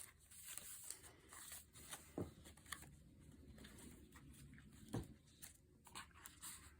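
Faint rustling and sliding of paper as a junk journal's tags and pages are handled, with two soft taps, about two seconds in and again about five seconds in.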